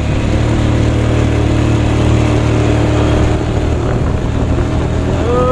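Motor vehicle engine running steadily while driving along a road, with a low, even hum. Near the end a voice briefly calls out in a held note.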